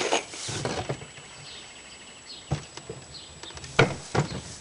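Plunger being pulled out of a homemade hand hay baler: hay rustling and scraping in the first second, then three sharp knocks of the baler's parts.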